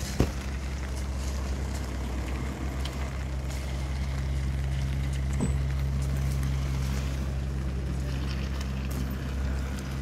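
A steady low mechanical hum, with faint scattered ticks and one sharp knock just after the start.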